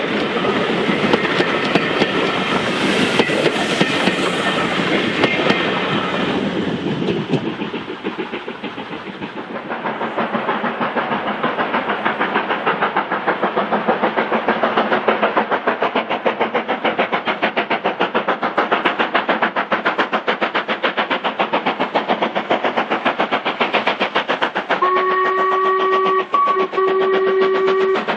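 LMS Black Five 4-6-0 steam locomotive No. 45212 working a passenger train, its exhaust beating in a fast, even rhythm from about a third of the way in. Near the end its whistle sounds in two blasts in quick succession.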